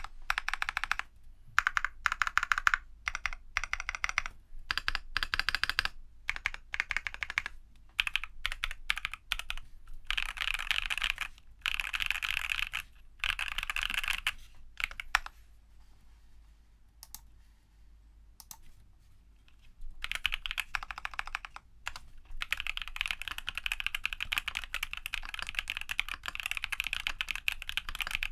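Typing on a Geon F1-8K custom mechanical keyboard with lubed TTC Holy Panda tactile switches, brass reinforcement, case foam and PBT dye-sub keycaps. Runs of fast keystrokes, a few seconds past the middle with only scattered key presses, then steady rapid typing.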